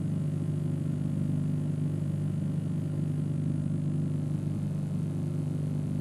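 Steady low electrical hum with several evenly spaced overtones, loudest at a low pitch and unchanging throughout; no clear music or speech over it.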